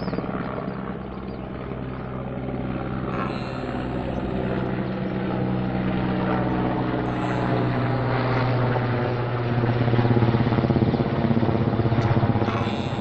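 Helicopter flying overhead: a steady low rotor beat with engine hum, growing louder to its peak about ten seconds in, then easing slightly.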